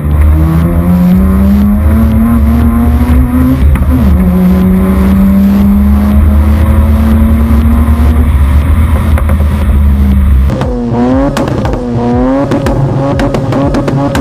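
Car engine accelerating hard, its pitch climbing steadily, dropping at a gear change about four seconds in, then climbing again. About ten seconds in it gives way to quick rising and falling revs.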